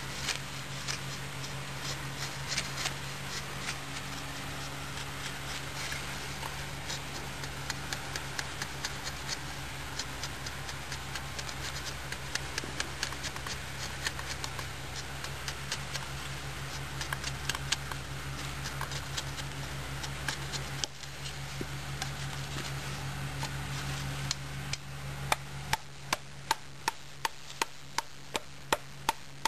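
Fixed-blade survival knife cutting into wood, a busy stream of small ticks and scrapes. In the last few seconds come sharp knocks about two a second, the blade chopping into wood.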